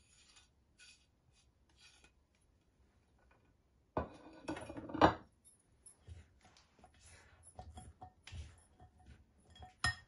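Metal spoon scraping and clinking against a glass bowl while stirring a dry spice mix of ground powders and whole spices. A loud clatter of clinks comes about four seconds in, scraping follows, and there is a sharp clink near the end.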